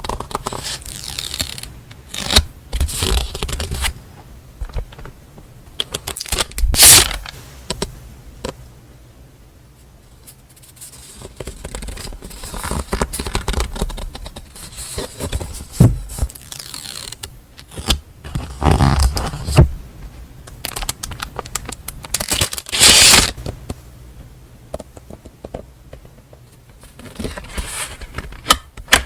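Paper and packaging handled during a stationery unboxing: irregular rustling, sliding and scraping of paper and wrappers, with two louder crinkling bursts, one about a quarter of the way in and one about three quarters of the way in.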